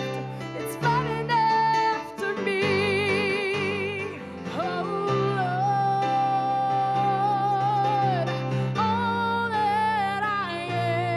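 A worship song: a solo singer holds long, wavering notes over acoustic guitar accompaniment, with one long held note in the middle.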